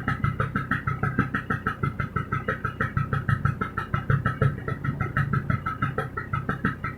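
Bajaj Vespa Deluxe scooter's single-cylinder two-stroke engine idling while warming up, with a fast pulsing beat that is uneven in strength. The engine runs slightly stuttery, which the owner takes for a rich, over-fuelled mixture that stays wet and won't clean up at high throttle.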